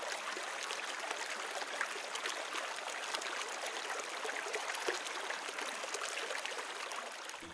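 Steady rush of a shallow mountain river running fast over stones, fading out near the end.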